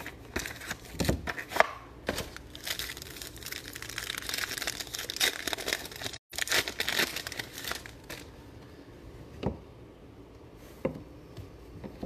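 A trading-card box handled with a few knocks, then a foil card pack torn open and its wrapper crinkled for several seconds. The crinkling dies away to a few soft clicks as the cards are handled.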